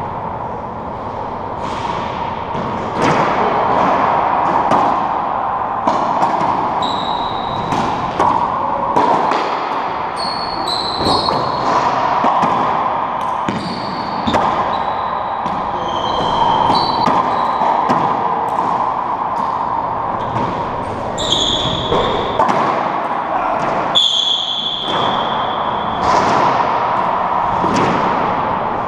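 Racquetball rally: the hollow rubber ball smacking off racquets, walls and floor many times at irregular intervals, with short high squeaks of sneakers on the hardwood floor, over a steady background hum.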